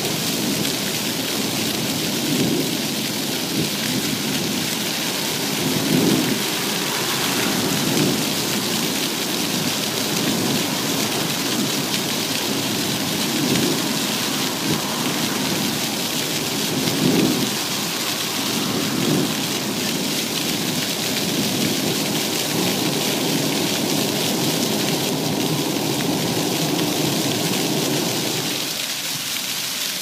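Fountain jets splashing onto stone paving: a steady, rain-like hiss of falling water with a few soft low rumbling swells, which ease off near the end.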